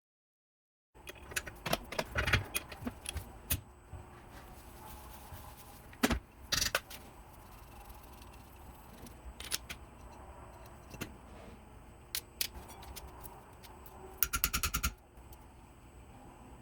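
Metal tools and small metal parts clicking and clinking against each other on a workbench, in scattered separate knocks, with a quick rapid rattle of many ticks about 14 seconds in.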